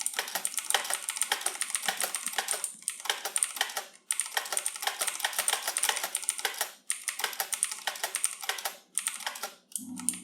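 Fast typing on a computer keyboard during a touch-typing drill: quick runs of keystrokes broken by a few short pauses.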